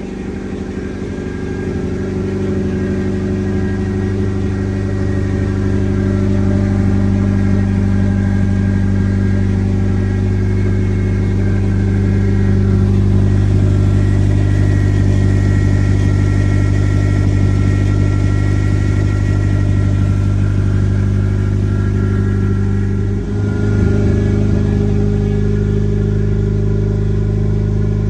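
Turbocharged Nissan SR20 four-cylinder engine of an SE-R Sentra running at a steady pitch, a level drone that grows a little louder over the first few seconds, with a brief dip in level late on.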